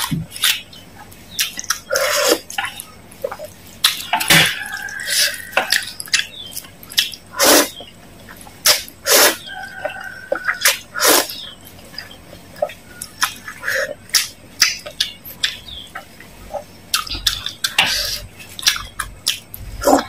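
Close-miked slurping and wet chewing of instant noodles in spicy broth: quick irregular slurps and mouth sounds, some with a brief whistle.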